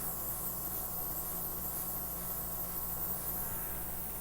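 Small cordless airbrush compressor running steadily, a low hum under a high air hiss, as it blows wet acrylic paint across the canvas.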